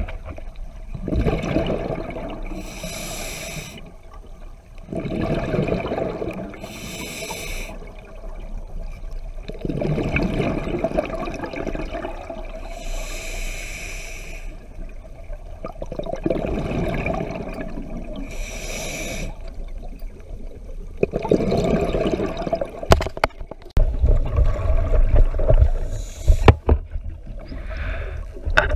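Scuba diver breathing through a regulator underwater: five short hissing inhales, each alternating with a longer rumbling burst of exhaled bubbles, about every five to six seconds. Near the end, a few sharp knocks and a deep rumble.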